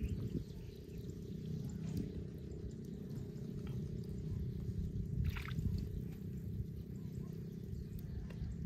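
Water pouring and dripping off a gill net as it is hauled hand over hand out of a pond, over a steady low rumble, with a brief sharper sound about five seconds in.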